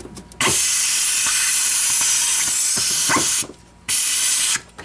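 Aerosol spray can hissing in two bursts: a long one of about three seconds, then a short one near the end.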